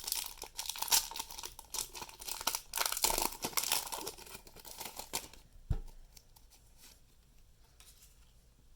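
Foil wrapper of a Pokémon card booster pack being torn open and crinkled, a dense crackly rustle for about five seconds, then a single soft thump and quiet.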